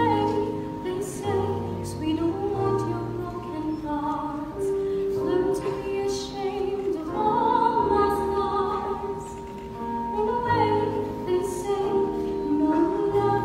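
Classical vocal music in an operatic style: singing in held notes with vibrato over low sustained accompanying notes.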